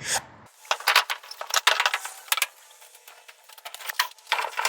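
Light, irregular clicking and scraping as metal roofing panels are wiped and scrubbed clean by hand.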